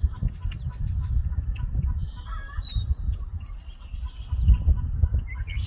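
A few short, harsh bird calls, about two seconds in and again near the four-second mark, over a steady low rumble.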